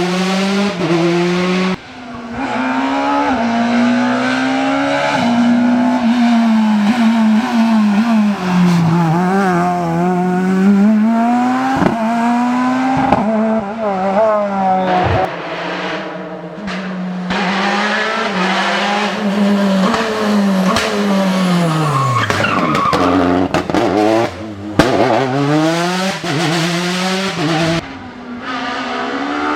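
Rally cars driven hard, engines revving up and falling back through gear changes, with tyres squealing in the corners; several passes are cut together.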